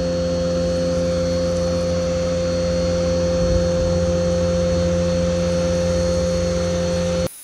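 Greenworks electric pressure washer running steadily, its high-pressure jet spraying water onto a truck, heard close up from the wand. The sound cuts off suddenly near the end.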